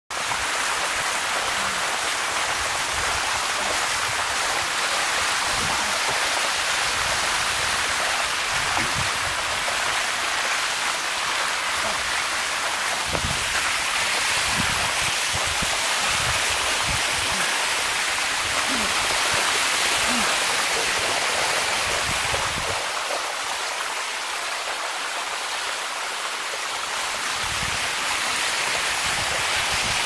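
A cascading waterfall rushing steadily over limestone rock, a loud, even hiss of water.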